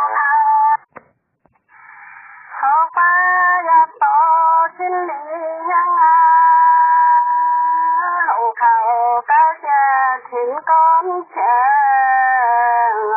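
A single voice singing a folk song with no accompaniment, in long held notes that waver and slide between pitches. There is a brief pause about a second in.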